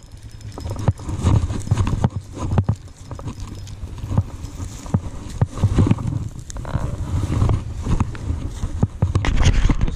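Irregular knocks and scuffs over a steady low rumble, a dozen or more sharp strikes at uneven spacing.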